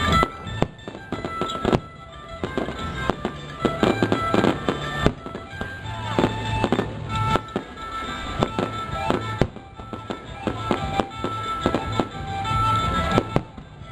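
Fireworks and firecrackers going off in quick, irregular bangs over music.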